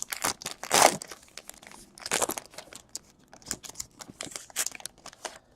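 Trading card pack wrappers crinkling and tearing as a pack of baseball cards is ripped open and handled, in quick crackly rustles with louder bursts about a second and two seconds in.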